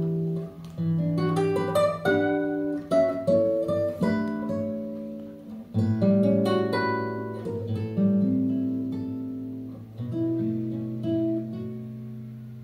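Acoustic guitar intro of a recorded song, picked notes ringing over held bass notes, played back through Qinsound hi-fi loudspeakers driven by a Perreaux SA35 preamp and Perreaux 2370 power amplifier and heard in the room. The last chord dies away near the end.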